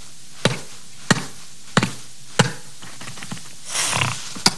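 Sharp, evenly spaced taps, about one every two-thirds of a second, five in a row; then a brief rustling hiss and one last tap near the end.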